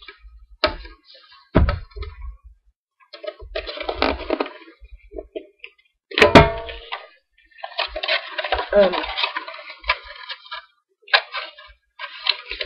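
Metal Pokémon card tin being handled and unwrapped: paper rustling and tearing, with a sharp metallic clack from the tin about six seconds in.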